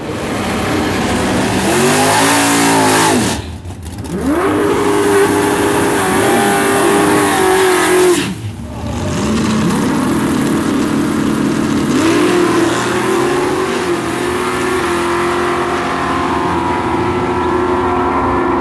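Drag-racing cars' engines revving hard at the starting line in rising bursts, then held at high, steady revs as the cars launch and run down the strip. The sound drops away briefly twice.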